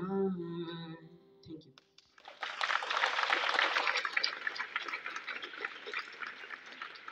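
A boy's singing voice over the PA holds the last note of a song and stops about two seconds in. Then a crowd of schoolchildren and teachers applauds, with dense hand-clapping that is strongest at first and slowly dies down.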